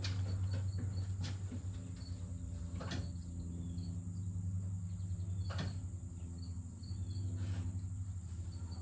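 Steady low electrical hum with crickets chirping, broken by three sharp clicks about a second, three seconds and five and a half seconds in.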